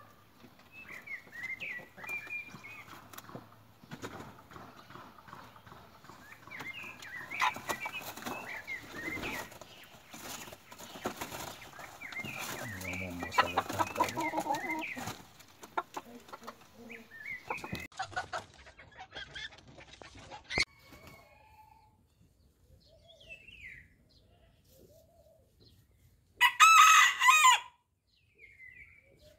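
Bantam chickens clucking and calling in their pen, then a bantam rooster crowing once, loud, for about a second and a half near the end.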